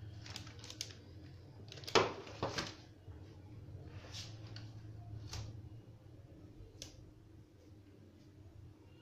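A series of short clicks and knocks from kitchen things being handled and set down, likely the baking tray being brought up to the bowl. The loudest are two knocks about two seconds in, with fainter clicks after that.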